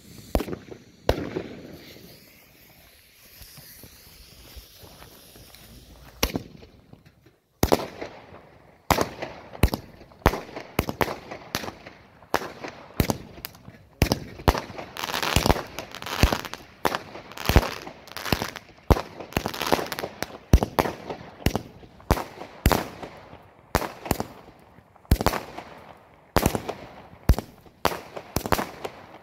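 Kajagu Horus 25-shot, 20 mm firework battery (cake): a low hiss for about seven seconds, then the tubes fire in quick succession, sharp bangs one to two a second without let-up.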